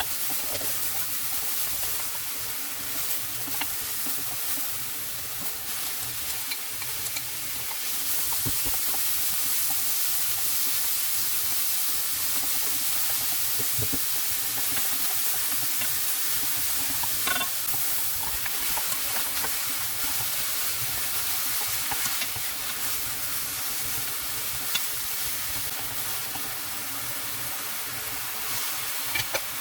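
Food sizzling in a hot frying pan while it is stirred, a steady frying hiss with scattered light clicks of the utensil against the pan; the sizzle grows a little louder about a quarter of the way in.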